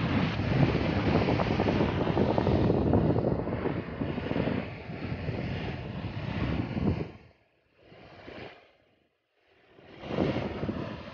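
Wind buffeting the microphone, a rough rumble that drops away about seven seconds in and returns near the end, with the sea's noise mixed in.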